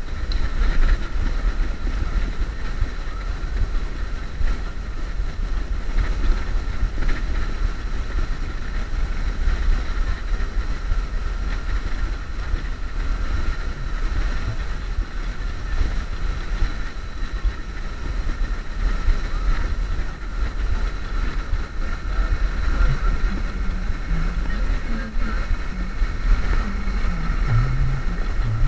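Wind buffeting the action camera's microphone while riding a Xiaomi Mijia M365 electric scooter at speed, a steady low rumble with road noise, and a faint steady high whine above it.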